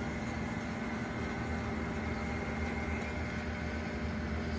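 Steady machine-shop background hum with a faint constant tone over a low rumble.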